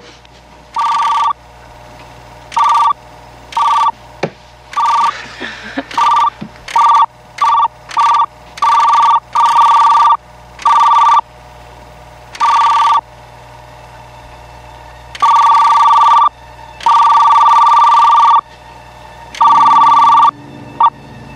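Computer terminal beeping as lines of text appear on the screen: a warbling two-tone electronic beep in a string of bursts, some short and some lasting a second or more, with a low hum between them.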